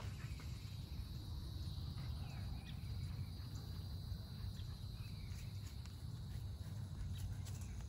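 Insects trilling steadily with a high, thin sound that fades out about five and a half seconds in, over a low steady rumble.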